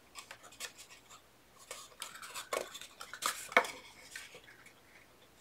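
Cardstock box being folded and pressed together by hand: light crinkling, rustling and small taps as glued tabs and corners are lined up. The loudest tap comes about three and a half seconds in.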